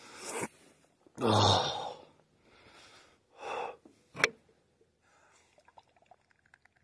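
A man sighing and breathing heavily, with a sharp click about four seconds in, then a run of faint gulps as he drinks from a beer can.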